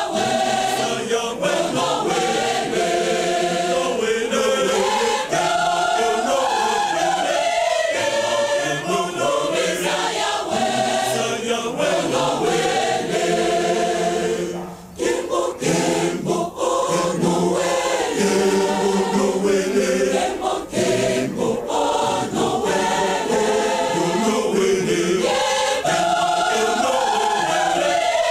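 Church choir singing a hymn in many voices together, with a short break about halfway through.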